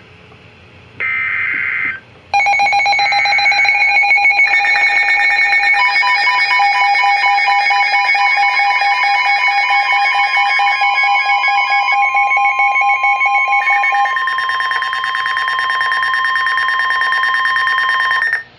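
The last burst of the EAS digital header, a screeching data burst of about a second. Then, from about two seconds in, the NOAA Weather Radio alert tone comes in: a loud, shrill blend of several steady pitches with a fast pulsing, a steady tone near 1 kHz joining a few seconds later. It holds for about 16 seconds and cuts off abruptly, the signal that a warning follows.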